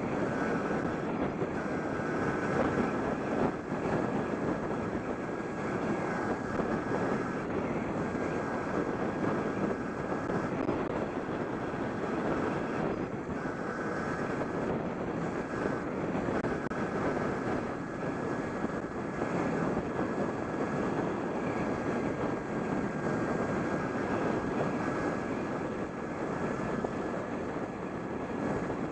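Wind rushing over a helmet-mounted microphone while riding an electric bike, with a steady high whine from the bike's electric drive that drops out briefly several times in the first half.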